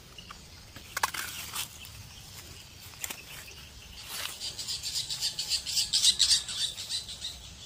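Birds chirping outdoors: a few short chirps early, then a fast run of high repeated chirps from about four seconds in to near the end.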